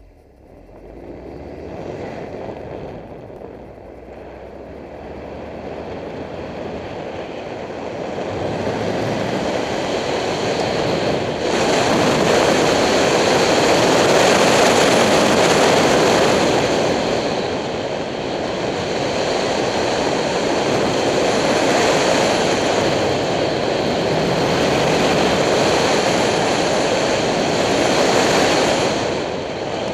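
A car accelerating away from a standing start and driving a cone course, its engine and a heavy rush of wind and road noise building over the first ten seconds or so, then swelling and easing as it speeds up and slows for the turns.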